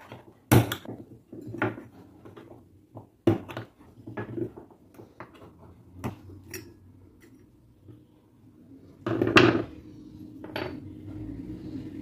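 Metal clinks and light knocks as a fan motor's stamped-steel end housing and small parts are handled on a workbench, with a louder metallic clatter about nine seconds in.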